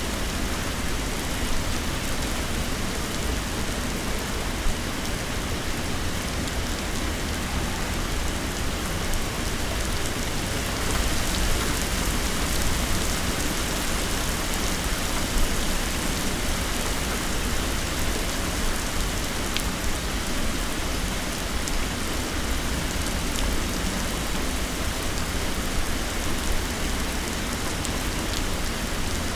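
Heavy rain falling steadily, with a dense even hiss and an occasional sharp drop tick.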